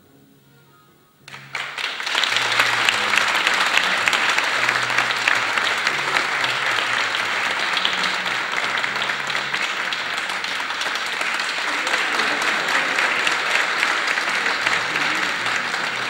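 Audience applause breaks out about a second in and keeps going steadily, with quiet music running underneath.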